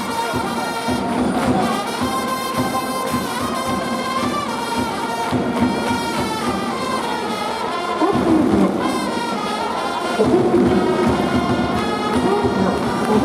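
Baseball cheering-section trumpets playing a fight song in a large domed stadium, growing louder about eight seconds in.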